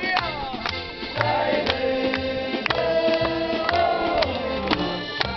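Small acoustic street band with guitar and accordion playing while the band sings, and listeners clap along in time.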